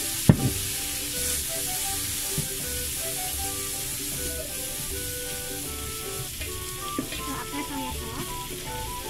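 Garlic, leeks and breadcrumbs sizzling in a nonstick frying pan with freshly added soy sauce, stirred and scraped with a plastic slotted spatula. A sharp knock of the spatula against the pan near the start is the loudest sound, with a smaller one later.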